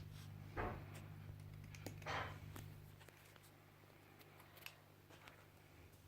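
Small plastic Lego bricks clicking and rattling as pieces are handled and pressed together, with two louder scraping rustles about half a second and two seconds in, over a low steady hum.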